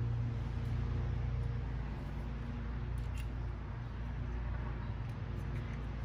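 Steady low mechanical hum, with a few faint light clicks about three seconds in.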